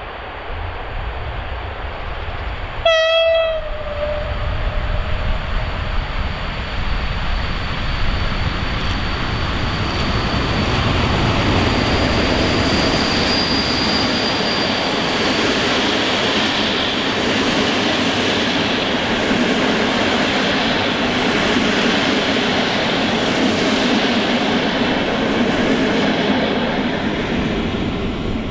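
EP07 electric locomotive gives one short horn blast about three seconds in, then passes at speed with a long train of passenger coaches: the rolling noise of wheels on rail builds, holds for a good quarter-minute and starts to fade near the end.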